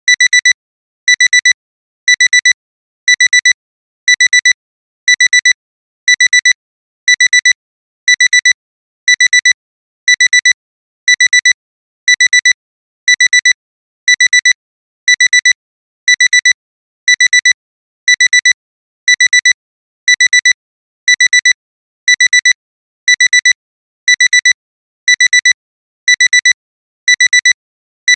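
Alarm clock's electronic alarm beeping without pause: high-pitched beeps in quick pairs, about one pair a second, signalling that the countdown has run out.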